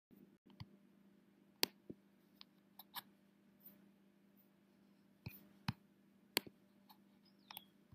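Faint, irregular sharp clicks and ticks, about a dozen, spaced unevenly over a low steady hum.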